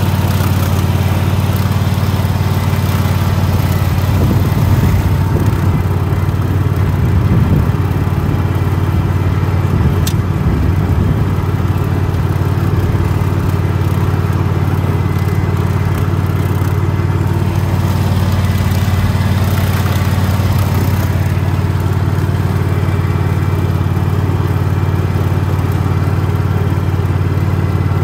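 Single-cylinder petrol engine of a riding lawn mower running at a steady speed as the mower drives across the grass.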